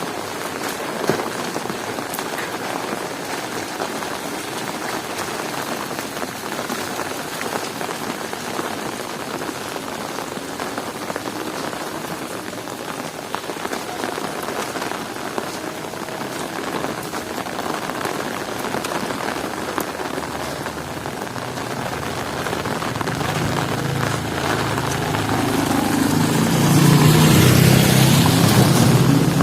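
Heavy rain falling steadily. Near the end a low rumble swells up and becomes the loudest sound.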